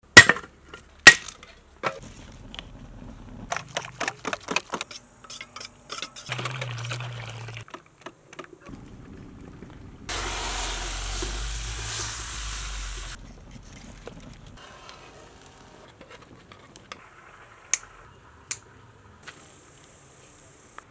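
Two sharp strikes of a hand tool chopping at a wooden branch, followed by a scatter of lighter clicks and knocks. About ten seconds in comes three seconds of a wood fire burning with a steady rush, starting and stopping abruptly.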